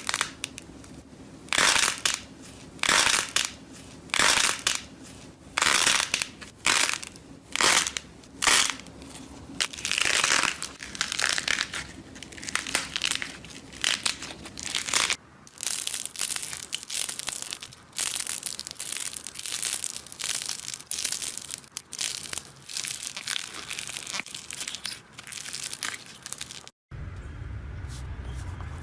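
Slime being squeezed and pressed by hand, giving repeated crunchy, crackling bursts about one every second or so. The sound changes abruptly about halfway through and again near the end, as the compilation cuts to other slimes.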